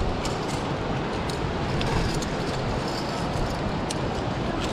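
Steady rushing rumble on a body-worn action camera's microphone, with a few light metallic clicks from the via ferrata lanyard's carabiners.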